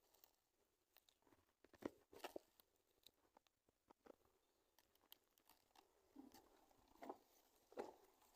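Near silence broken by faint, scattered clicks and knocks, a few louder ones about two seconds in and again near the end.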